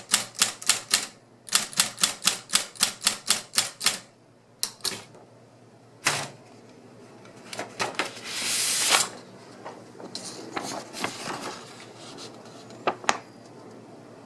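Royal Apollo 12 GT electric typewriter typing: two runs of rapid, evenly spaced keystrokes, about seven a second, then scattered single strokes. About eight seconds in there is a longer mechanical rush lasting about a second, followed by a few more clicks.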